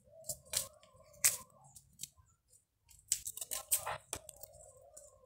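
Small paper seed packet of lettuce seeds being torn open by hand: short sharp rips and crinkles, a few in the first second and a half and a quicker cluster past the middle.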